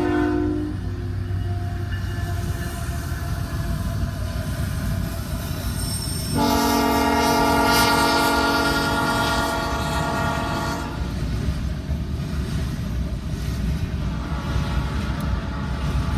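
Locomotive air horn on a CN GE ET44AC freight train. One blast ends just after the start, and a single long blast of about four and a half seconds begins about six seconds in, over the steady low rumble of the moving train.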